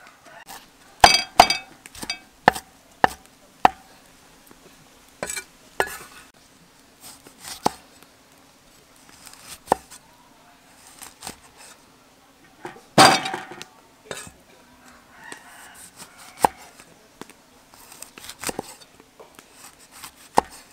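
Cleaver chopping limes on a wooden chopping block: a series of sharp, irregularly spaced knocks, the loudest about a second in and again about thirteen seconds in.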